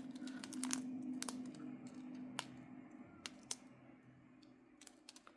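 Faint, scattered clicks and light handling noise from small plastic bags of diamond-painting drills being picked up and sorted, over a faint steady low hum that fades out.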